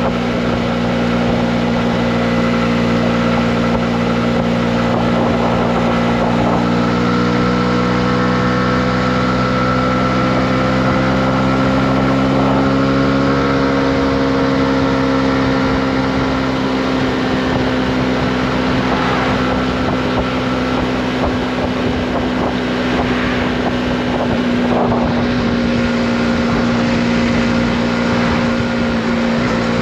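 Honda CB125R's single-cylinder four-stroke engine running at a steady cruise, its pitch rising slightly around the middle and easing back down, with wind rushing over the microphone.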